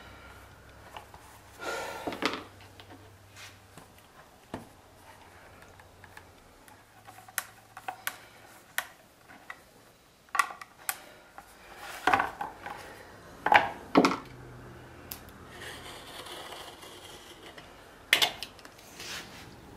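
Scattered clicks, knocks and short scrapes of hand tools handled on a leatherworking bench: a screwdriver turning the fastening screws of a leather holster. Near the end, a utility knife cutting a strip of heavy leather along a steel rule, in two quick strokes.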